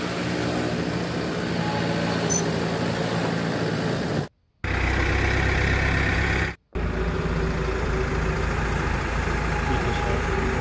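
Backhoe loader's diesel engine running steadily while it lifts and lowers a concrete culvert pipe into the trench, broken by two brief silent gaps about four and six and a half seconds in.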